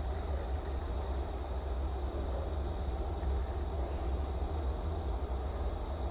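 Night insects chirping in a steady, high-pitched pulsing trill over a constant low city rumble.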